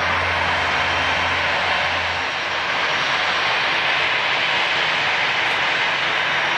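Airbus A320 jet engines running steadily, a loud even whine and rush. A low hum underneath stops about two seconds in.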